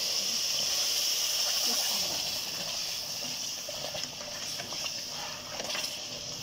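Water poured into a hot pan of semolina fried in ghee with sugar, hissing steadily as it hits the hot fat and boils up, the hiss easing off slowly; a few faint clicks near the end.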